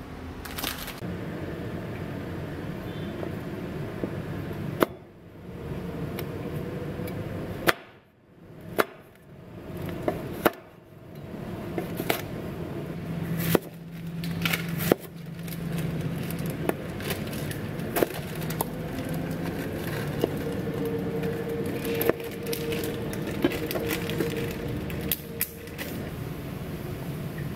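A chef's knife cutting a zucchini into rounds on a plastic cutting board: a series of sharp, irregular knocks as the blade hits the board, most of them in the second half, over a steady background hum.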